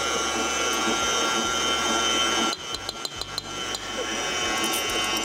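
Electric stand mixer running, its motor whining steadily as the beater works a butter-and-sugar batter. About halfway through the sound drops noticeably quieter and a quick run of light clicks follows, with a few more near the end.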